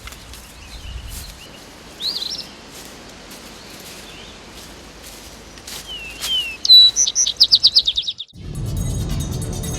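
Birds chirping and calling over a faint steady outdoor hiss, ending in a loud, rapid trill of about eight notes near the end. A brief gap follows, then music starts in the last second or so.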